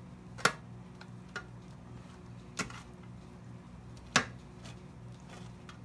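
A kitchen utensil knocking sharply against a dish four times, loudest about half a second in and again about four seconds in, over a steady low electrical hum.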